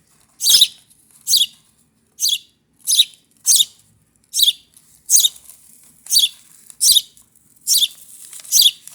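Hand-raised baby birds giving short, high chirps over and over, about one every 0.7 seconds, each dropping in pitch: begging calls from chicks waiting to be fed from the beak.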